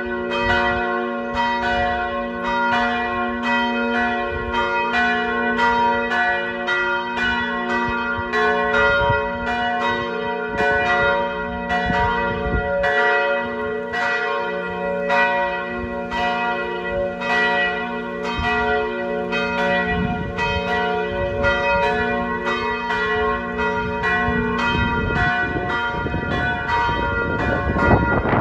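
Several large church bells pealing together at noon, heard from directly beneath the tower: overlapping strikes about two a second over the long, steady hum of the biggest bells.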